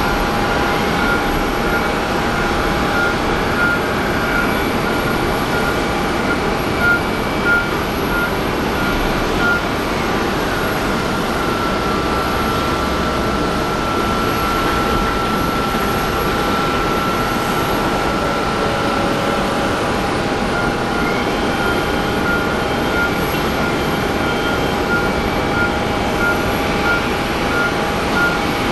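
Steady airport apron noise: a continuous hum and whine of idling aircraft engines. Over it a warning beep from ground equipment repeats about twice a second for the first several seconds, turns into one held tone in the middle, then pulses again near the end.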